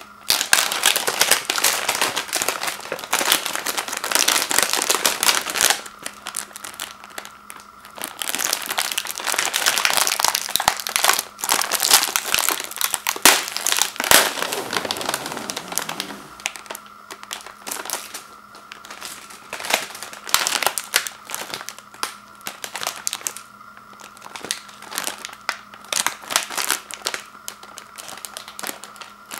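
Crinkling and crackling of a plastic cookie bag being handled and opened, its resealable flap peeled back from the tray inside. It is loudest in two long stretches in the first half, with lighter, scattered crinkles after that.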